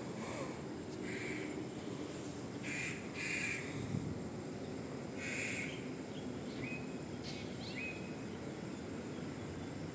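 Birds calling outdoors: a few short, harsh calls, two of them close together, then some brief rising chirps, over a steady low background hum.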